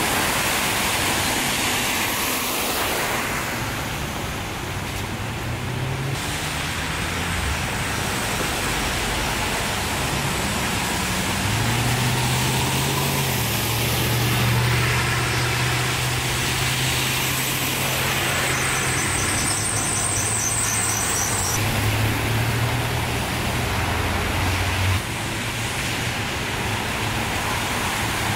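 Cars driving through deep floodwater one after another, tyres sending up hissing sheets of spray over a low engine hum. A brief high-pitched trill comes in about two-thirds of the way through.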